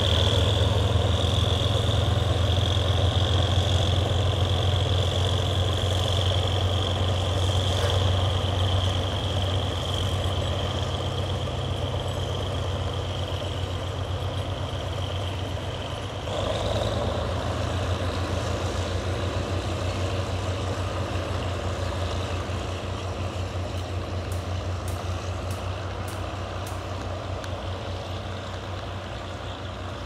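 GEK-class diesel-electric locomotive hauling a passenger train away from the station: a steady engine rumble with a high whine over it. The sound swells about halfway through, then slowly fades as the train moves off.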